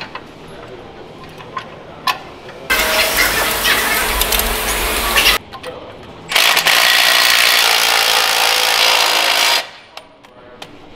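Cordless impact wrench driving a bolt through a steel shock-mount bracket, in two runs of about three seconds each. A few small metal clinks of the bolt and bracket being fitted come before.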